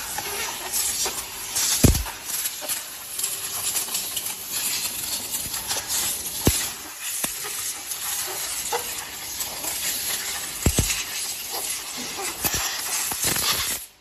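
Workshop noise at a silicone compression-molding press: a steady hiss with a few sharp knocks.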